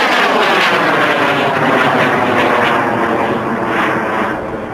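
Aerotech M1419 high-power rocket motor burning as the rocket climbs away: a loud, steady roar with a falling, sweeping tone running through it, fading slowly and dropping off more near the end.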